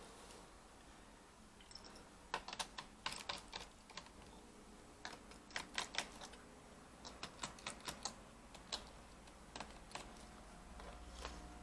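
Quick runs of small plastic clicks, like keys on a Lenovo B575 laptop keyboard being pressed, starting about two seconds in and stopping near the end.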